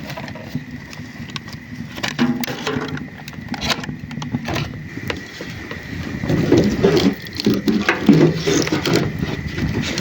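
Scattered knocks and clatter of things being handled, over a faint steady high-pitched tone. Low voices come in during the second half.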